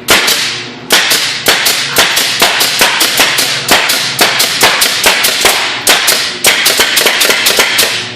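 Nail gun firing again and again into an Acer LCD computer monitor: a fast string of sharp shots, about three a second, some in quick pairs.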